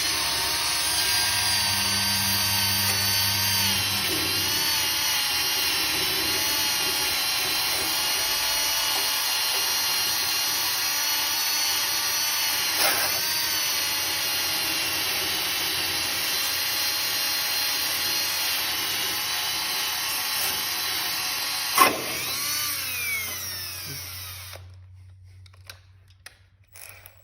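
Battery drill spinning a wire wheel against the engine to scrub it clean, a steady high whine that sags slightly in pitch at moments under load. Near the end a sharp click, then the motor winds down with falling pitch and stops.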